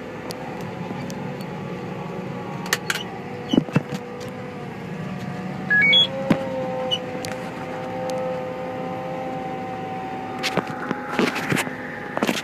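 Tractor engine running steadily under load while pulling a planter, heard from inside the cab. A short rising three-note beep sounds about six seconds in, and scattered knocks and clicks come through, most of them near the end.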